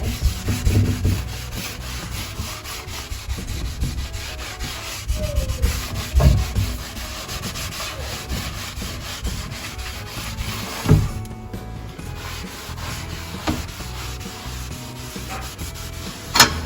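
Gel stain being rubbed by hand into the surface of old wooden cabinetry to fill its cracks and imperfections: a steady scrubbing of quick back-and-forth strokes on wood. A few sharp knocks break in, the loudest near the end.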